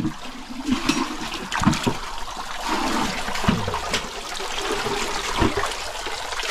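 Water splashing and sloshing in an irregular run of splashes over a steady wash of moving water.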